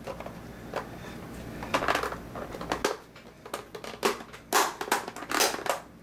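Hands handling and pressing the case of a Mercury TR 8000 cassette recorder as its back is fitted on: irregular clicks, knocks and rubbing scrapes, loudest about two seconds in and again through the second half.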